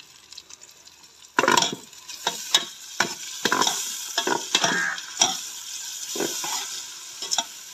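Chopped tomatoes tipped into a pot of frying onions start sizzling all at once about a second and a half in. A metal ladle then stirs, scraping and knocking repeatedly against the aluminium pot over a steady sizzle of frying.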